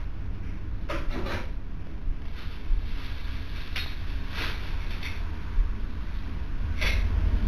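Steady low hum from a home security camera's microphone, with a few brief soft knocks and rustles as a cat climbs up onto a fireplace mantel hung with Christmas stockings.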